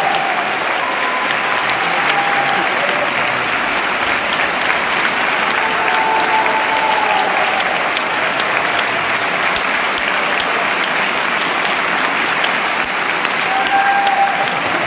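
Large audience applauding steadily at the end of a choral-orchestral performance, with a few voices calling out over the clapping.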